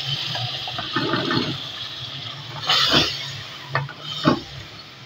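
A wooden spoon stirs a wet ground masala paste into frying chicken in an aluminium pressure cooker. It makes a sloshing, squelching sound over a sizzle that slowly dies down as the wet paste cools the oil. The spoon knocks against the pot several times, loudest about three seconds in.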